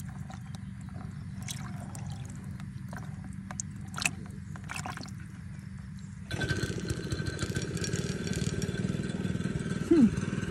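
Small splashes, drips and clicks of water as a hand stirs through a bucket of small live fish, over a steady low engine hum. About six seconds in, the engine suddenly gets louder and runs on steadily, and a short falling sound comes near the end.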